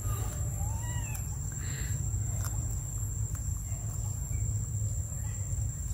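A long-tailed macaque gives one short coo that rises and falls in pitch about a second in, over a steady low rumble.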